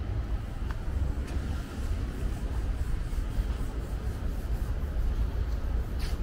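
Outdoor street ambience dominated by a low, gusting rumble of wind on the microphone, with a few faint clicks, one near the end.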